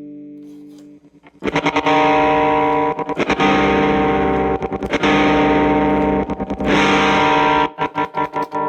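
Electric guitar played through a telephone-style pedal's fuzz circuit. A fuzzed chord fades out, and about a second and a half in loud distorted chords start ringing. Each held chord is followed by a few quick muted strums before the next.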